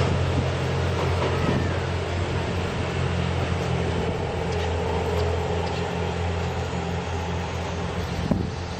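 A train running on the line, a steady low drone under an even rumbling noise.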